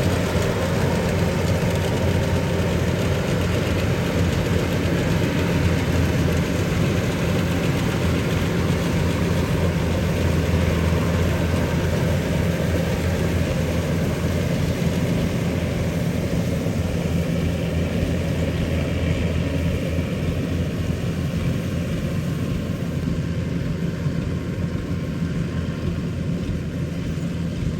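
Yanmar 850 combine harvester's diesel engine running steadily under load while cutting rice, a deep, even hum with mechanical clatter over it. It grows a little quieter over the last ten seconds or so.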